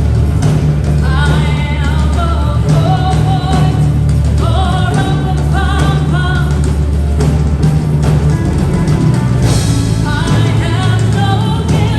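Background music: a pop song with a steady bass and a sung vocal line.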